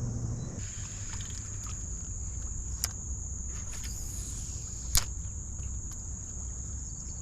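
Open-water ambience from a fishing boat: a steady low rumble under a steady high-pitched buzz, with two sharp clicks about three and five seconds in.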